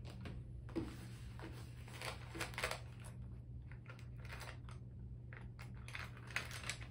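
Crinkling and clicking of a plastic-windowed tool pouch being handled as screwdrivers are picked from it, in short irregular bursts over a low steady hum.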